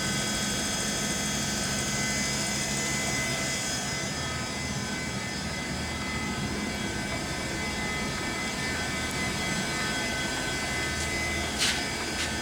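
LeBlond 4025 NK gap lathe's powered sliding-bed drive running steadily: a low machine hum with several high whining tones over a hiss. Two short clicks sound near the end.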